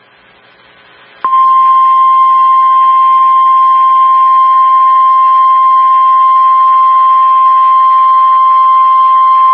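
NOAA Weather Radio 1050 Hz warning alarm tone: after about a second of faint radio hiss, a single loud, steady high tone starts abruptly and holds. It is the attention signal that announces an emergency alert, here a severe thunderstorm warning.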